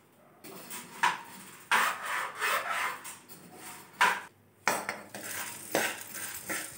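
Steel spoon stirring and scraping chana dal (split Bengal gram) as it roasts in a pan, the dal rustling against the metal in a run of uneven sweeps.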